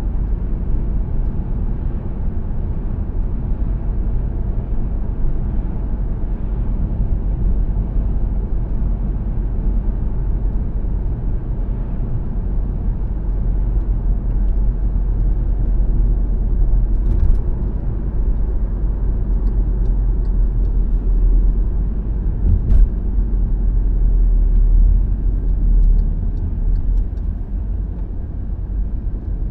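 Steady low rumble of a car driving along a road, tyre and road noise heard from the moving vehicle, with a brief click about 17 seconds in and another about 23 seconds in.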